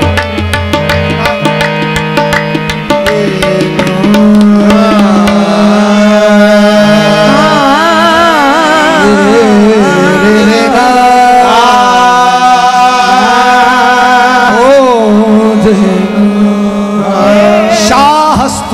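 Qawwali music: tabla strokes over a sustained harmonium drone, then from about four seconds in a lead singer's long, wavering, sliding vocal line over the harmonium, with the tabla coming back in near the end.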